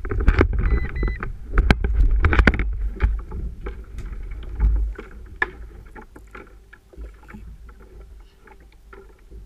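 Handling noise on a paddle ski: heavy knocks and rumble with wind on the microphone for about the first five seconds, then quieter, with scattered small clicks as a fishing rod and reel are handled.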